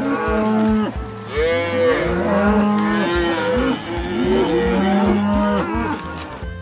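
Several cattle mooing, long drawn-out calls at different pitches overlapping one another, with brief lulls about a second in and again past the middle.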